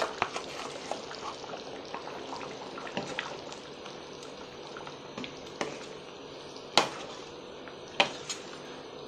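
Chicken salna (curry gravy) bubbling and simmering in a stainless steel pot as ground coconut paste is stirred in, with a few sharp clinks of the spoon against the pot.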